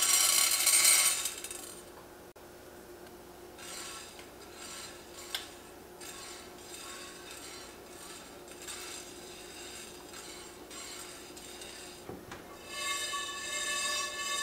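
Whole black peppercorns pouring out of a small bowl and rattling onto the bottom of an empty enameled cast-iron pan, then softer scattered clicks as they are spread about by hand. Near the end the pan is shaken on the burner and the peppercorns roll and rattle across the enamel, dry-toasting in the pan.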